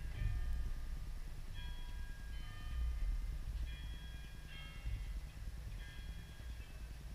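Distant bells chiming a slow sequence of ringing notes, over wind rumbling on the microphone.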